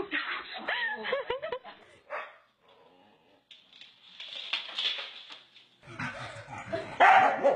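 Dogs growling and barking in short bursts. There is a near-quiet gap a couple of seconds in, and the loudest burst comes near the end.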